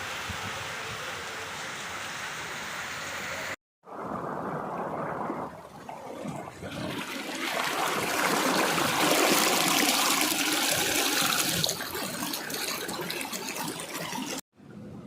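Steady rush of flowing floodwater across a few spliced shots, with two brief dropouts where the shots change; the rush is loudest and hissiest in the middle.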